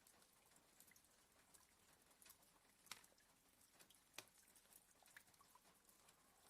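Near silence broken by sparse, light ticks of raindrops tapping on a window pane, with two sharper taps about three and four seconds in.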